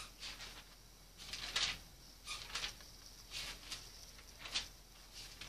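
Pages of a Bible being turned: soft, short paper swishes, about one a second.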